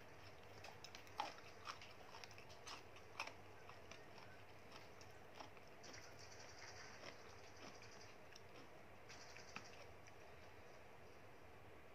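Faint chewing with a few light clicks in the first few seconds, then a wooden spoon stirring and scooping in a plastic tub of soup, giving two short swishing stretches.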